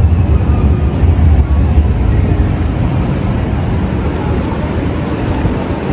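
Calgary CTrain light-rail train pulling into the station platform, with a heavy low rumble that eases off a little as it slows to a stop.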